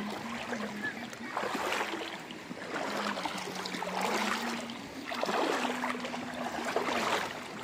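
Rubber boots wading through shin-deep floodwater, water sloshing and splashing in a surge with each stride, over a steady low hum.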